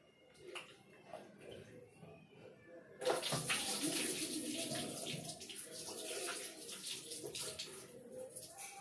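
Tap water running into a bowl as raw chicken pieces are rinsed and washed by hand. The flow starts suddenly about three seconds in, after a few light clicks, and runs steadily until near the end.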